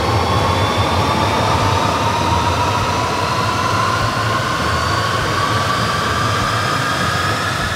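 Rolls-Royce Avon turbojet being spun up by its converted electric starter motor: a whine that climbs slowly and steadily in pitch over a loud rush and a low hum as the engine gains revs.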